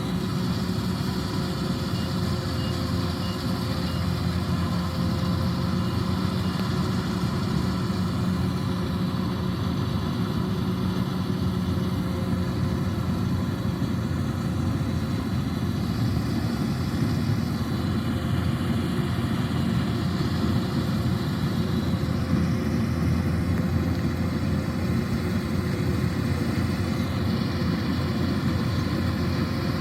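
Diesel engine of a Kubota DC-105X combine harvester running steadily at constant speed, a continuous hum with a faint steady whine above it.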